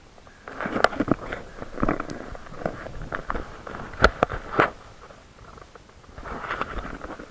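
Irregular clicks, knocks and rustling of a handheld camera being turned and gripped close to its microphone, with several sharp knocks in the middle.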